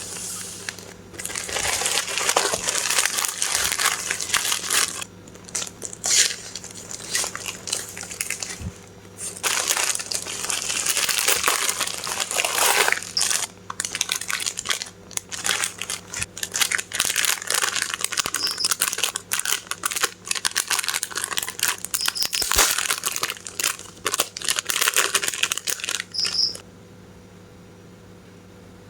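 Packaging crinkling and rustling in repeated bursts as a parcel is unwrapped by hand; it stops near the end.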